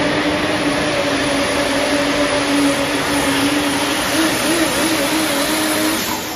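Pulling vehicle's engine running hard at full throttle under load, with a thin high whistle over it. The pitch holds steady, wavers briefly about four seconds in, and the engine note drops off about six seconds in as the run ends.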